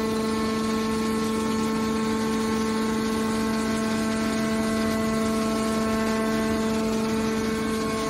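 Hydraulic scrap metal baler's power unit, an electric motor driving the hydraulic pump, running with a steady, even whine while the cylinder swings the press box lid shut.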